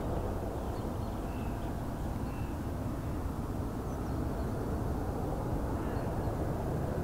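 Distant, steady rumble of an Ilyushin Il-76TD's four Soloviev D-30KP turbofan engines as the freighter comes in on final approach, growing slightly louder near the end.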